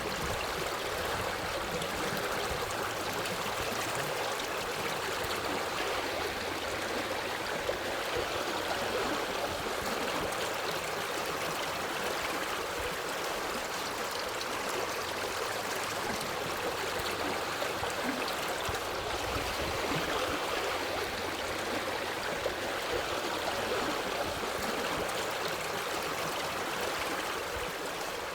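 Water stream flowing steadily, an even, unbroken rush of running water.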